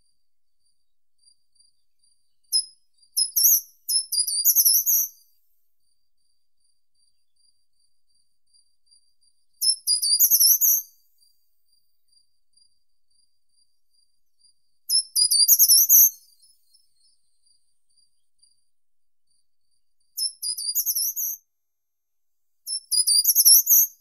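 Short-toed treecreeper singing: five short, high-pitched song phrases of a second or two each, roughly every five seconds. Faint, quick high ticks run between the phrases.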